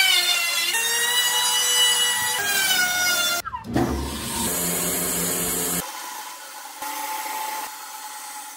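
Electric hand planer running as it shaves a wooden block, its motor pitch sagging as each pass bites. After a short break about three and a half seconds in, a bandsaw runs and cuts through a hardwood board.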